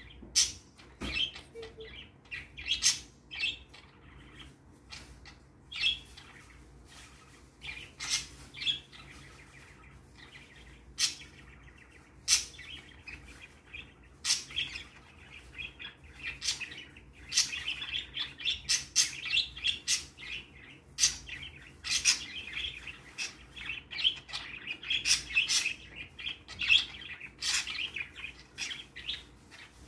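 Pet budgerigars (parakeets) chirping: scattered sharp chirps at first, turning into a busier run of chattering warble from a little past halfway.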